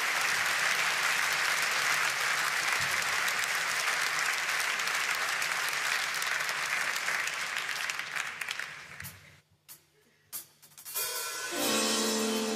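Concert audience applauding, fading away about nine seconds in. After a short hush with a couple of small knocks, the band starts the tune with a held chord near the end.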